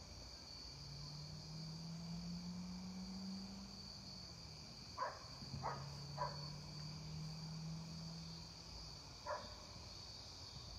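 Crickets chirping steadily in the evening, with a low steady drone beneath them in two stretches. A few short knocks come about halfway through and once more near the end.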